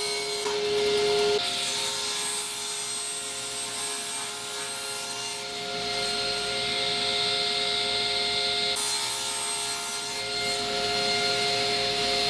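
Electric saw running with a steady whine while cutting wood.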